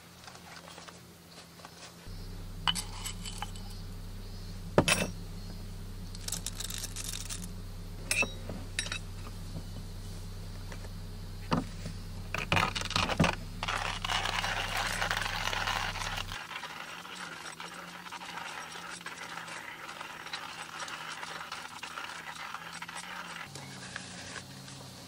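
Stainless hand coffee grinder being handled, with a string of sharp metallic clicks and clinks. It is followed by about ten seconds of gritty grinding noise as the crank turns the beans through the burrs. A steady low hum runs under the first two-thirds and stops suddenly.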